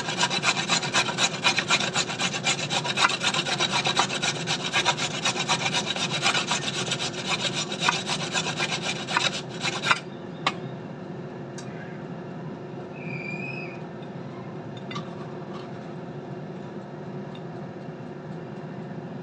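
Carrot being grated on a stainless steel box grater: quick, rhythmic rasping strokes that stop abruptly about halfway through. A steady low hum and a few light clicks remain.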